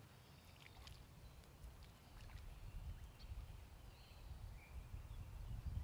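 Faint outdoor background: a low rumble that swells slightly toward the end, with a few faint ticks and brief high chirps.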